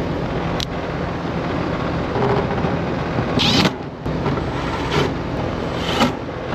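AC condensing unit running steadily with its compressor and condenser fan, pulling heat after the cleaned compressor plug was refitted. A few short bursts, the longest about three and a half seconds in, of a screw gun driving the panel screws back in.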